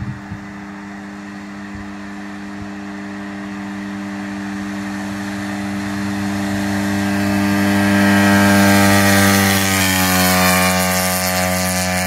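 Straight-piped go kart engine running at a steady note as the kart drives closer, growing louder to its loudest about three-quarters of the way through, with the note dropping slightly in pitch after that.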